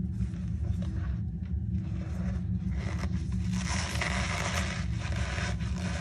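Hands squeezing and crumbling reformed cornstarch gym chalk, the packed powder giving a squeaky crunch. It is loudest in a long squeeze from about three to five seconds in. A steady low hum runs underneath.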